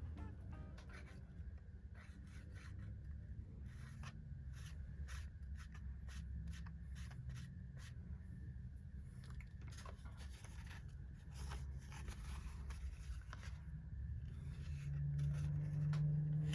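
Light clicks, taps and scraping of small parts being handled and worked on a workbench, over a steady low hum. A louder humming tone comes in near the end.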